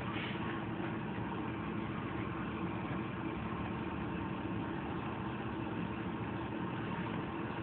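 A steady low mechanical hum of running machinery, unchanging throughout.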